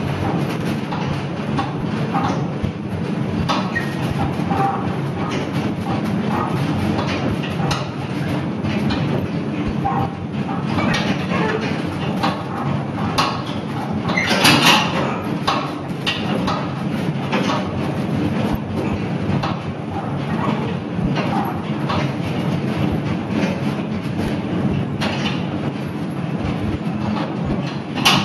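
Small narrow-gauge steam locomotive running, heard from its footplate: a steady low rumble with irregular clicks and clatter, and a louder short burst about halfway through.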